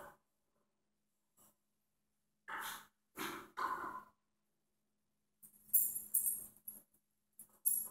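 Three short puffs of breath blowing metal drilling chips out of a freshly drilled carburetor adaptor, then a bright metallic jingling and clinking of small metal parts about halfway in, and again near the end.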